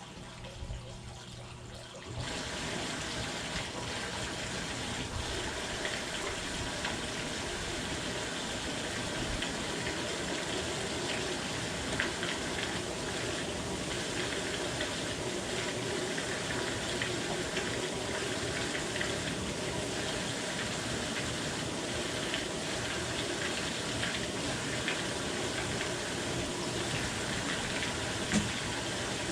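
Hot tub jets running, with water churning and splashing steadily in the tub; the rush starts suddenly about two seconds in.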